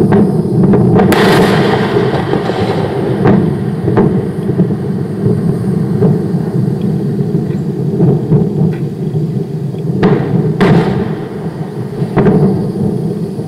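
SpaceX Falcon 9 rocket exploding on the launch pad, heard from a couple of miles away: a continuous heavy rumble of burning fuel and liquid oxygen, broken by sharp cracks of secondary explosions about a second in and several more near the end.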